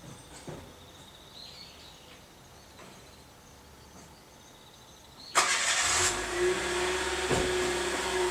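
Quiet outdoor ambience, then about five seconds in a road vehicle passes close with a sudden loud rise of engine and tyre noise that carries on to the end.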